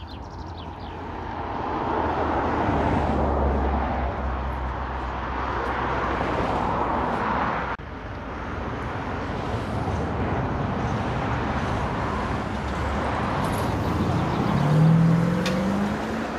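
Propeller and piston engine of a single-engine Cirrus light aircraft running on the runway, a steady broad drone that swells about two seconds in. Near the end the engine note rises in pitch as power comes up. There is a brief break a little before halfway.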